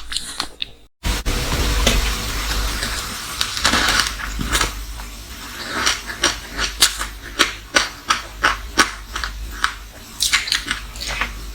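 Close-miked chewing of frozen matcha green tea ice. After a brief dropout about a second in there is a hissing, grinding crunch, then a long run of sharp crunches, a few each second.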